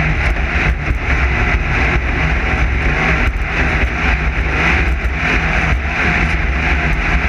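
Class 9 desert race car running hard and steady, its engine droning under wind rush, with frequent knocks and rattles as it goes over rough ground.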